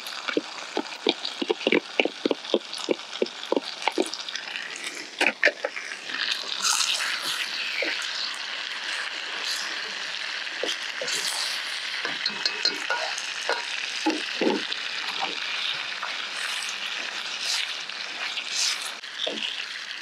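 Pad see ew noodles with chicken, egg and choy sum sizzling in a hot pan while being stir-fried. For the first several seconds a utensil knocks and scrapes against the pan in quick strokes, two or three a second; after that a steady sizzle goes on, with only an occasional clack.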